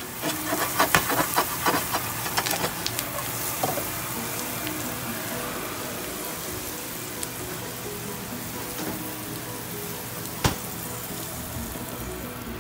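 Asparagus frying in oil in a nonstick pan: dense spitting crackles for the first few seconds, settling into a steady sizzle, with one sharp knock near the end.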